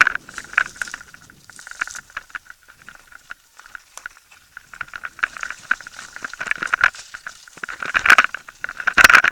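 Mountain bike rattling and clattering down a rough, rutted dirt track, heard from a helmet camera: a fast stream of small rattles and clicks, with two hard jolts about eight and nine seconds in.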